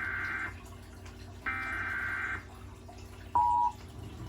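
Emergency Alert System SAME header: bursts of warbling digital data tones, the first ending half a second in and the next lasting about a second, then the two-tone EAS attention signal starts a little over three seconds in and is cut off abruptly after about a third of a second.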